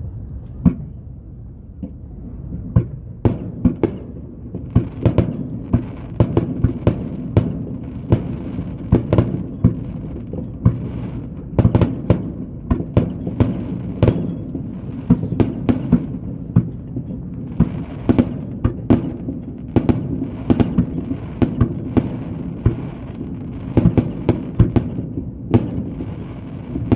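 Aerial fireworks going off in quick, irregular succession: dozens of sharp booms, at times several a second, over a steady background rumble.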